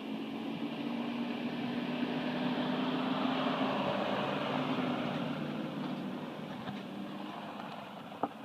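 A vehicle engine running steadily, swelling louder towards the middle and then fading away, with a sharp click near the end.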